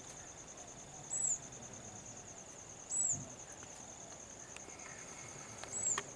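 Insects trilling steadily in the jungle with a high, fast-pulsing buzz, and a louder, short high chirp breaking in about every two seconds, three times.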